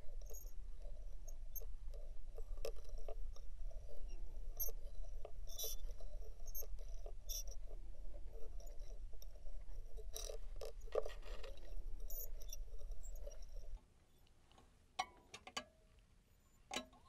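Small found objects of a micro orchestra being scraped and rattled, a dense run of scratchy clicks and rattles over a steady low hum. The hum and the rattling stop suddenly about fourteen seconds in, leaving a few sparse clicks.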